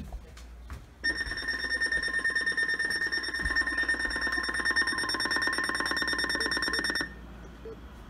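Weather radio sounding its alert tone for a Flash Flood Warning: a loud, steady, high-pitched electronic tone with a fast pulsing buzz under it. It starts abruptly about a second in and cuts off about six seconds later.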